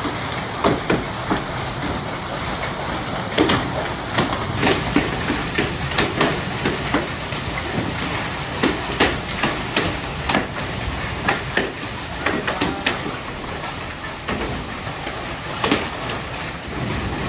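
Heavy hail pelting hard surfaces: irregular sharp knocks and cracks of hailstones striking, over a steady hiss of the falling storm.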